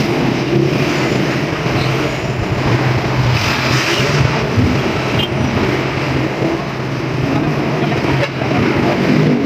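Honda Click scooter's single-cylinder engine running steadily.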